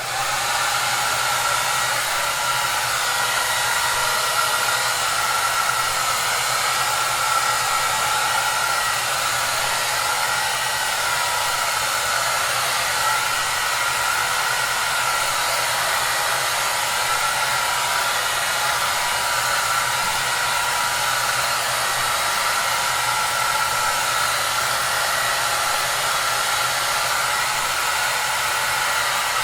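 Hair dryer running steadily: a constant rush of air with a steady whine and a low hum underneath.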